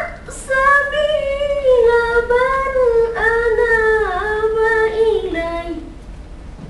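A boy reciting the Quran in melodic, ornamented chant (tarannum): one long drawn-out phrase that slowly falls in pitch and ends about six seconds in.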